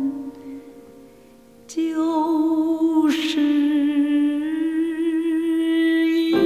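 A TV drama's closing theme song, a slow ballad. After a brief quieter moment, a long held note sung with vibrato rises over soft accompaniment.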